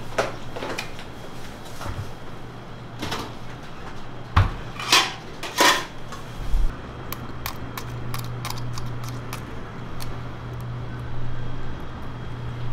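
Kitchen handling clatter: four short, loud noises in the first half, then a scatter of light clicks, over a steady low hum.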